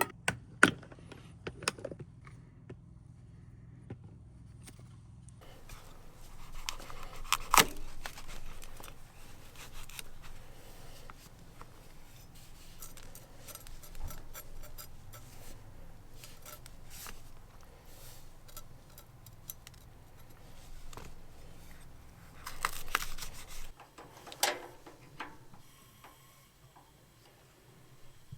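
Camp cooking gear and food being handled: scattered clatter, scraping and rustling, with a few sharp knocks.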